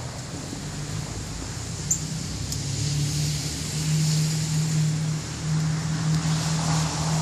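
An engine's steady hum at a constant pitch, growing louder a few seconds in, over a steady outdoor hiss.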